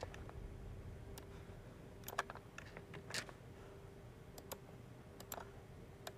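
Scattered, irregular clicks of a computer keyboard being typed on, quiet and close, over a faint steady hum.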